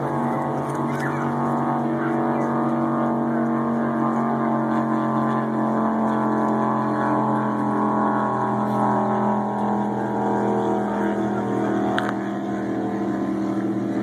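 Miss Geico offshore racing catamaran's turbine engines running at speed, heard across open water as a steady, even-pitched engine note whose pitch shifts slightly partway through as the boat runs past. A short click comes near the end.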